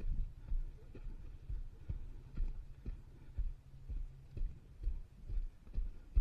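Moto Guzzi V85TT motorcycle moving slowly over rough off-road ground: a low steady engine hum with dull thumps about twice a second.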